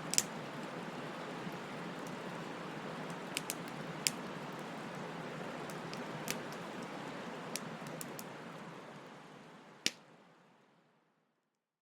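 Wood fire crackling: a steady hiss with scattered sharp pops, the loudest about ten seconds in. The sound fades out over the last few seconds to silence.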